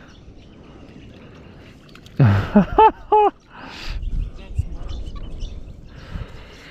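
Steady beach ambience of wind and surf, broken about two seconds in by a short burst of loud, high calls, three or four quick rising-and-falling cries.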